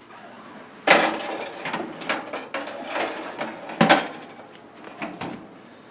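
A pizza pan clattering against the metal rack and door of a Cosori countertop air fryer oven as a pizza goes in: two loud knocks, about a second in and near four seconds, a lighter one after five seconds, and small rattles between them.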